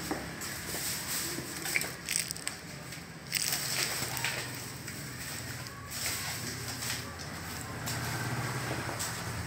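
Baby macaque chewing a biscuit, with irregular small crunches and crackles, more of them in the first few seconds.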